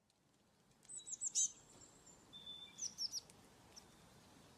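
Birds chirping: short, high, falling chirps in quick runs, about a second in and again around the middle.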